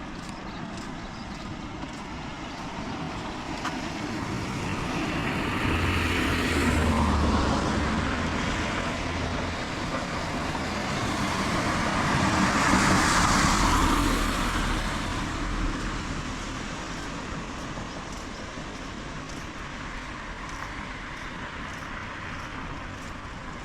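Steady rain with two vehicles passing on the wet road. The tyre hiss swells and fades, peaking about seven seconds in and again about thirteen seconds in.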